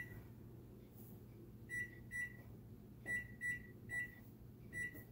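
Samsung electric range's touch-pad control panel beeping as its keys are pressed to set the clock: about seven short, high beeps at uneven intervals, some in quick pairs.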